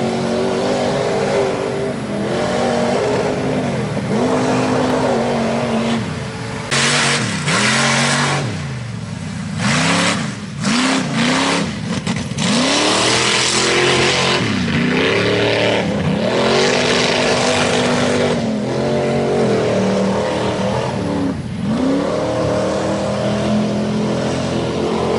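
S-10 mega truck's freshly installed engine revved hard again and again, its pitch climbing and dropping back many times: a new motor being run in. A few seconds of loud rushing noise come about a third of the way in.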